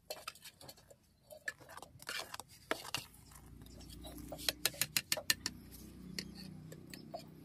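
Steel ladle clicking and scraping against a metal cooking pot as vermicelli is stirred in boiling water, with a quick run of clicks about halfway through. A low steady rumble starts about three seconds in.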